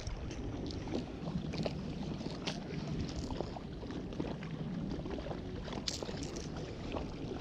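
Wind and water ambience aboard a small fishing boat, a steady low rush with scattered light clicks and knocks of handling gear.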